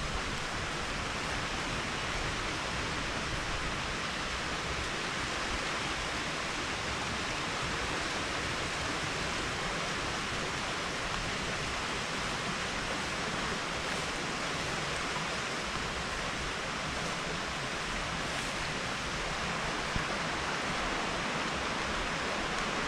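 A woodland stream running: a steady, even rush of water with no breaks.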